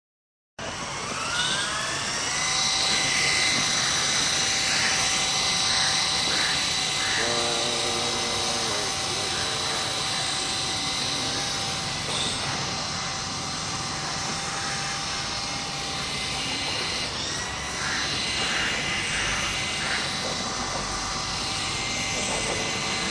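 Double Horse 3-channel RC helicopter's small electric motors and rotors spinning up with a rising whine, then running at a steady high-pitched whine, with small changes in pitch as the throttle shifts.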